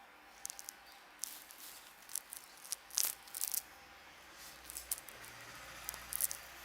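Hands working through hair and over the scalp during a head massage: a run of short, crisp crackles and rubbing clicks that come in clusters, thickest about three seconds in and again near the end.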